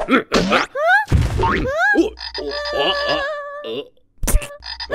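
Cartoon croaking of a giant blue frog: several croaks, some sliding up in pitch and one held steady for about a second. A couple of sharp knocks follow near the end.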